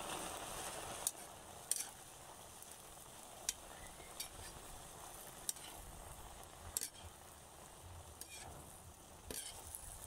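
Chopped Chinese cabbage stir-frying in a pan: a faint, steady sizzle, with a metal spoon clicking and scraping against the pan now and then as the leaves are tossed.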